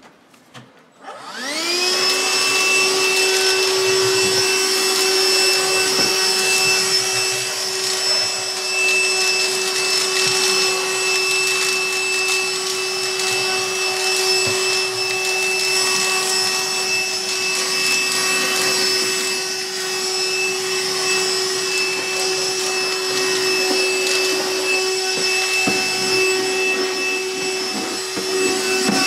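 Handheld vacuum cleaner switching on about a second in: its motor quickly rises in pitch, then runs with a steady whine as it sucks up spilled dry cat food.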